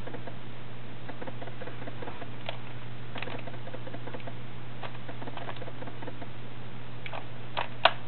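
Rubik's Cube being turned fast in a speed-solve: the plastic layers click and clack in quick irregular runs, with two louder clacks near the end.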